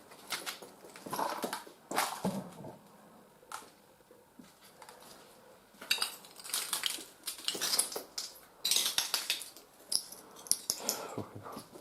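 Hard objects clattering and rattling in irregular bouts, like crockery or metal items being knocked about or moved.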